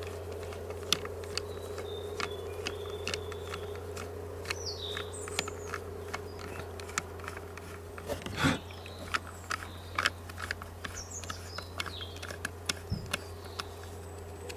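Scattered small metal clicks and taps of a screwdriver working screws into a chainsaw's bar oil pump cover plate, with one louder knock about eight and a half seconds in. Birds chirp a few short calls over a steady low hum.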